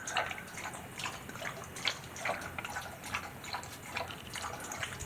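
Water from a freshwater spring dripping and trickling inside a rock cave, irregular drips about two a second over a faint steady trickle.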